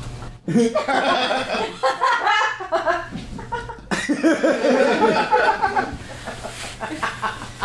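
Live audience laughing, with a fresh swell of laughter about four seconds in.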